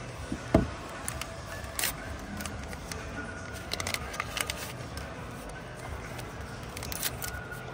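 Scattered sharp clicks and taps, the loudest about half a second in and a cluster near the middle, over a faint steady hum.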